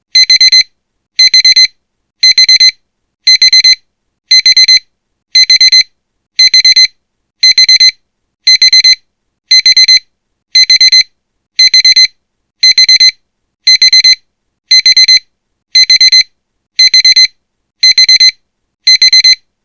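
Honda key-in-ignition reminder alarm beeping: short, high electronic beeps, each a quick run of about three pulses, repeating evenly about once a second. It is the warning that the key has been left in the ignition.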